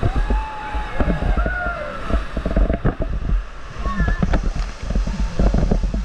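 River water rushing and splashing around an inflatable raft, with irregular sharp splashes, a heavy rumble of wind on the microphone and a few brief shouts from the rafters.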